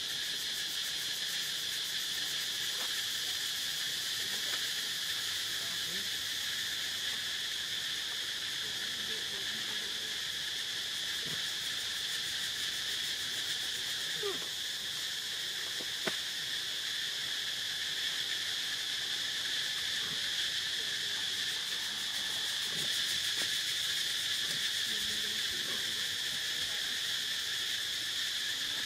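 A steady insect chorus: a continuous high-pitched drone that holds level without a break.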